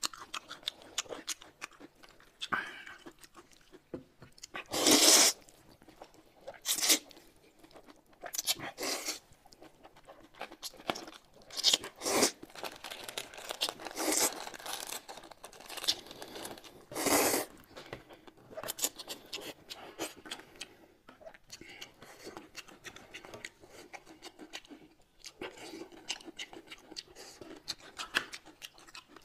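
Close-miked eating: irregular crunching bites and chewing, with a handful of much louder, sharp crunches spread through.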